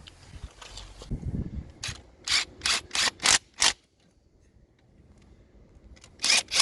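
Ratchet wrench clicking in short back-and-forth strokes while screwing in diesel glow plugs. A run of about six quick ratchet strokes comes first, then a pause, then four more near the end.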